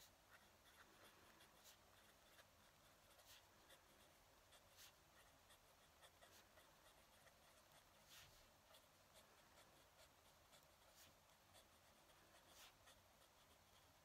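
Faint scratching of a fountain pen nib moving across lined paper as someone writes in continuous strokes.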